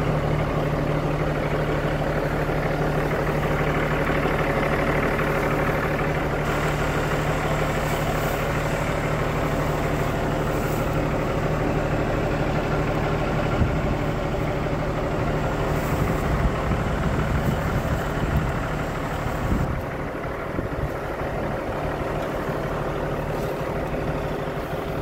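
The Cummins ISX inline-six diesel of an International 9900i tractor, idling steadily.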